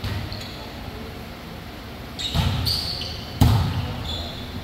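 Volleyball struck by hand once, a sharp smack about three and a half seconds in that echoes in the gym, with short high squeaks of sneakers on the court floor around it.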